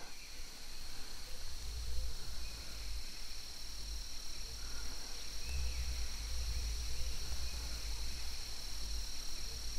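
A steady chorus of night insects trilling without a break at two high pitches, over a low rumble that swells and fades.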